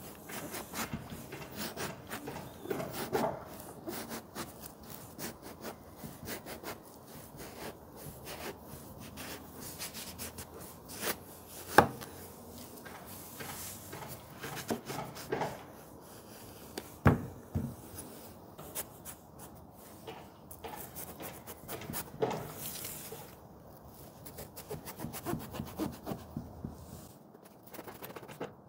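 Chef's knife cutting and scraping strips of skin off an eggplant, then scoring its flesh, on a wooden cutting board. The sound is a steady run of small rubbing, slicing strokes, with two louder sharp knocks of the blade on the board partway through.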